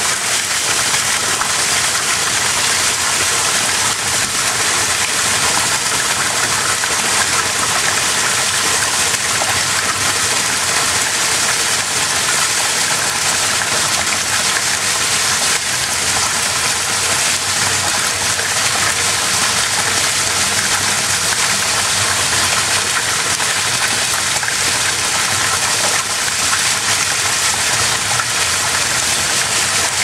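Artificial waterfall in a plaza water feature: a sheet of water pouring down and splashing onto concrete, heard from right behind the falling curtain as a loud, steady rush.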